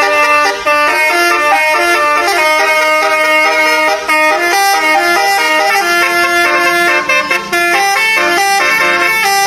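Telolet basuri musical bus horn playing a melody, its horn tones stepping quickly from note to note without a break.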